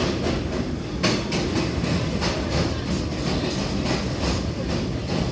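New York City subway train running along the platform track, a steady rumble with its wheels clacking over rail joints about three times a second from about a second in.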